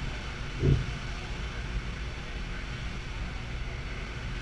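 Steady rush of wind and churning sea between two ships running close alongside, with a brief low thump about half a second in.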